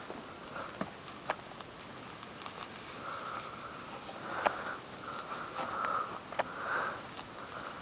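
A rubber-gloved hand tearing and pulling the thick, spongy peel off a pomelo: short spurts of rubbing and scraping, with a few sharp clicks.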